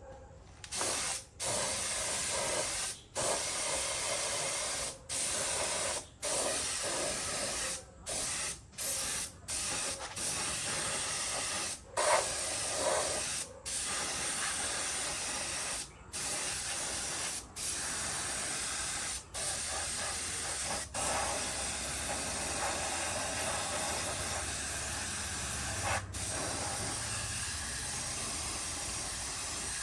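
Compressed-air spray gun hissing in long bursts, the trigger released for a moment every second or two, then held more steadily near the end.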